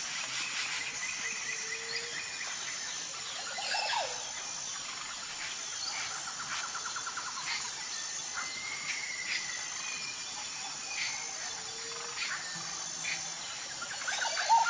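Insects chirring in a steady high trill, with scattered bird chirps and short calls over it and a louder call near the end.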